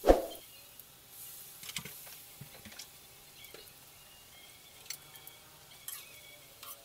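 A single clank of a metal bowl against the wok right at the start, ringing briefly. Then faint crackling and sizzling of batter-coated tempe slices deep-frying in oil in a wok, with a few light clicks of a metal spatula near the end.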